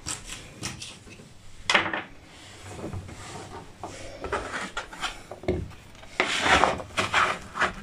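A plastic scraper rubbing and scraping across a wooden chopping board as cut carrots are gathered up, in short irregular strokes with a sharp knock a little under two seconds in; the scraping is densest near the end.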